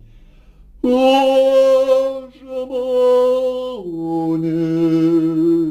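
A solo voice singing a slow Lithuanian song in long held notes with vibrato. After a brief pause it takes up one long high note, then steps down to a lower held note about halfway through.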